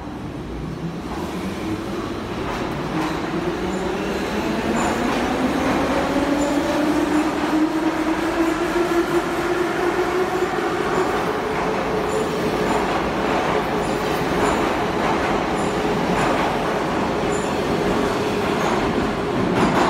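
Soviet-built Ema-502 metro train accelerating out of a station: the traction motors' whine rises steadily in pitch over the first half and then holds, as the train grows louder. Wheels knock over rail joints as the cars pass, most plainly near the end.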